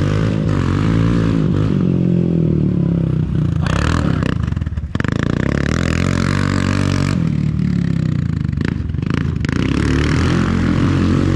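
ATV engine revving up and easing off over and over as the quad accelerates between barrels and slows to turn around them on a dirt arena.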